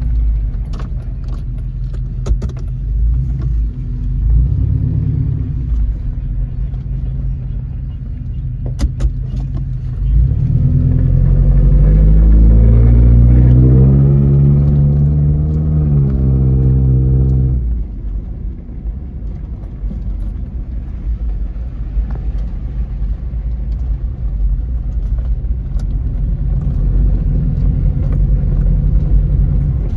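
Freshly installed Toyota 3RZ-FE 2.7-litre four-cylinder engine in a 1997 Tacoma pulling the truck on a test drive. About ten seconds in it revs up under throttle for several seconds, rising in pitch and getting louder, then drops off sharply as the throttle is lifted or the gear changes. It then settles back to a steadier, lower drone.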